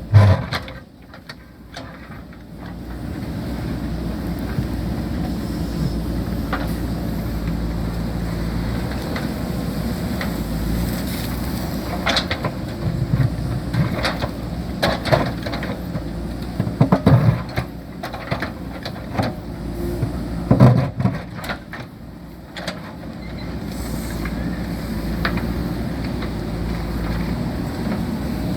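JCB backhoe loader's diesel engine running steadily under working load. It drops back briefly near the start and again about three quarters of the way through, and several sharp knocks sound over it in the middle stretch.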